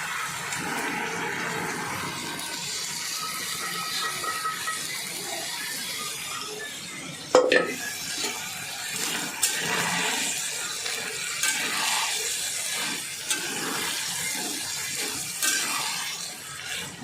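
Water pouring with a steady rushing sound for several seconds. About seven seconds in there is a sharp metal clank, followed by scraping and several clinks of a utensil against metal cookware.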